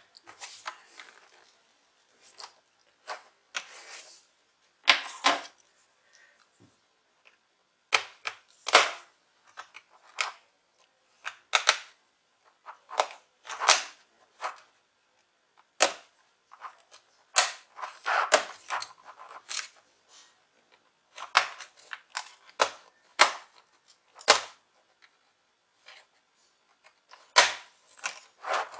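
Plastic snap clips of a Lenovo V110 laptop's bottom cover clicking and cracking loose as the case edge is pried apart, a sharp snap every second or two, some in quick clusters.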